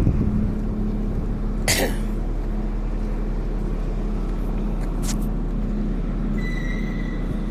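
Steady low rumble of a vehicle on the move, with a sharp click about two seconds in, another about five seconds in, and a brief high beep near the end.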